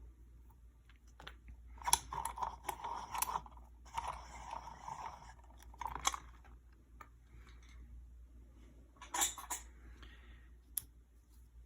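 Small metallic clicks, scrapes and rattles of an ASSA Desmo lock and its picks being handled, coming in several short bursts with pauses between.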